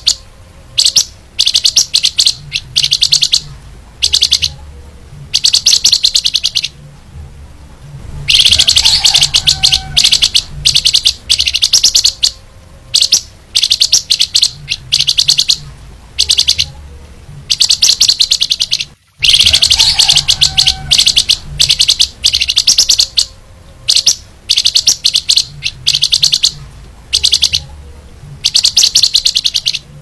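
Caged flamboyan songbird singing vigorously (gacor): repeated bursts of rapid, high, chattering trills, each broken off by a short pause before the next.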